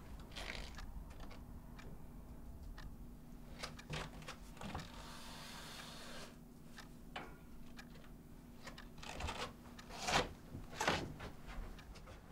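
A window being opened by hand: scattered light clicks, a sliding rush of about a second and a half around five seconds in, then two louder knocks near the end, over a low steady hum.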